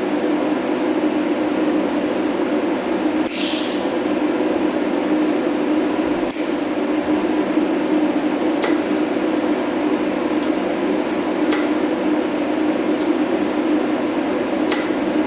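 Steady electrical buzz of an AC TIG welder on cast aluminum, with a brief hiss about three seconds in and a few sharp ticks scattered through.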